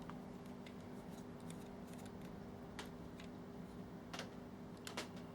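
Faint scattered clicks and ticks of a screwdriver working at a stuck screw in a projector's plastic case, over a steady low hum. The clearest clicks come a little after four seconds and again near five seconds.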